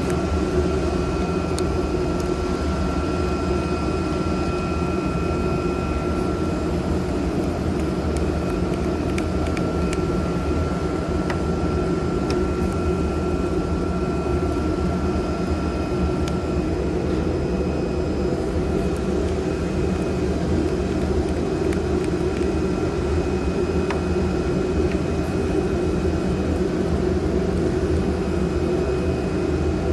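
CNC pneumatic knife cutting machine at work, cutting V-grooves in honeycomb board: a steady, loud machine drone with a thin high whine that stops a little over halfway through.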